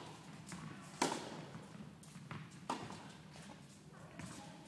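Tennis ball pocking off rackets and bouncing on an indoor court during a rally, several echoing strikes with the loudest about a second in.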